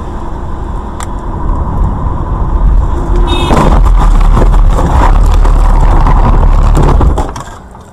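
A car driving, heard from inside on a dash camera: a loud low rumble of engine and road noise that swells to its loudest from about three seconds in, with a few knocks and a brief high-pitched tone, and falls away about seven seconds in.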